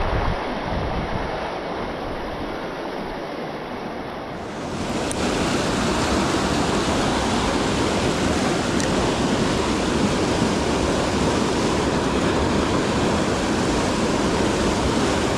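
Rushing river current, a steady rush of water that grows louder and fuller about four and a half seconds in.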